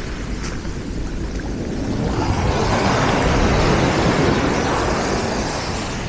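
Sea surf washing up a pebble beach: a wave surges in, swelling from about two seconds in to a peak and then easing off, over a steady low rumble.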